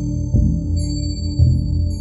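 Background music with a slow, deep beat about once a second under sustained high tones.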